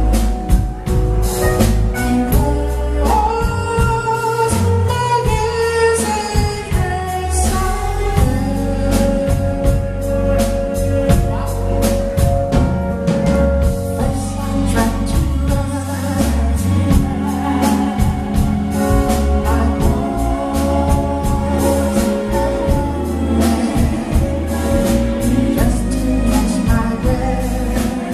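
Live band music: a lead singer over keyboard, electric guitar and drum kit, with backing singers.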